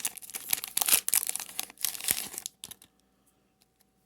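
Foil Pokémon booster pack wrapper crinkling as it is torn open and handled, stopping about two and a half seconds in, followed by a few faint ticks.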